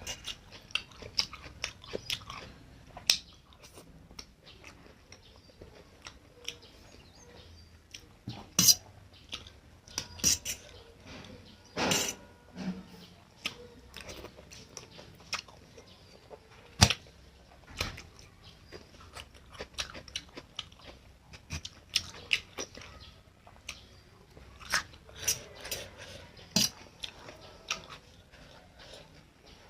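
Close-miked chewing of Maggi instant noodles and fried egg, with frequent irregular wet mouth clicks and smacks.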